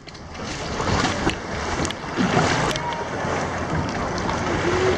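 Sea water sloshing and splashing around people wading through waist-deep shallow water, with wind rumbling on the microphone.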